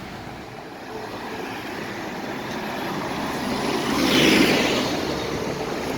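A road vehicle passing by on the street: its tyre and engine noise builds steadily, peaks about four seconds in, then fades.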